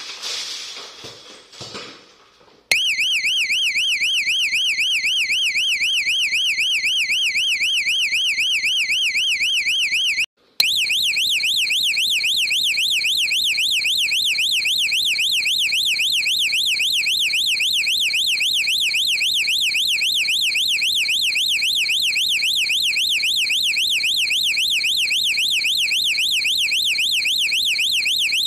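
Electronic security alarm siren sounding, a loud high tone warbling rapidly up and down several times a second. It starts abruptly about three seconds in and drops out briefly about ten seconds in, with faint knocks and rustling before it starts.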